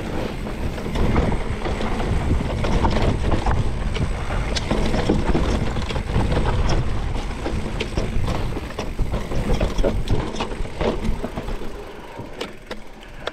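Mountain bike riding fast down a rough dirt trail: tyres rolling over dirt and dry leaves, and the bike's chain and parts clattering with many quick knocks over the bumps, over a steady rush of wind on the microphone.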